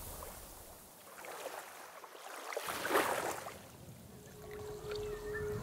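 Lake water lapping and washing, with one swell rising and fading about three seconds in. A steady held note comes in near the end.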